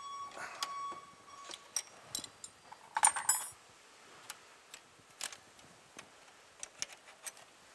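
A metal wrench clinking and clicking against bolts and brackets, with irregular sharp metallic clicks, a brief ringing near the start and a louder rattle of clicks about three seconds in.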